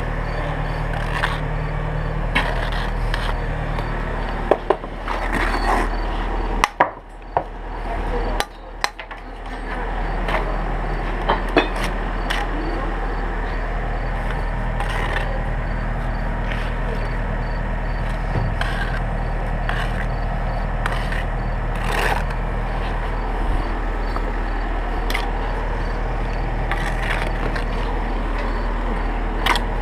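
Bricklaying at close range: a steel trowel scraping mortar, with bricks knocked and tapped into place in short clicks and knocks every few seconds. A steady low engine hum runs underneath.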